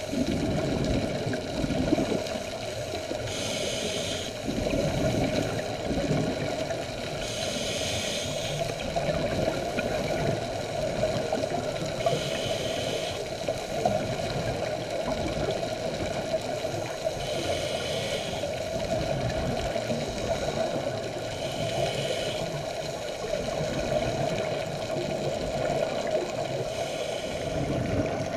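Scuba diver's regulator breathing underwater: a gurgling rush of exhaled bubbles about every four to five seconds, over a steady underwater rumble.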